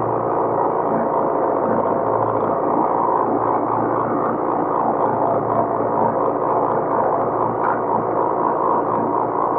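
Farm tractor engine running steadily under load, with a busy mechanical clatter.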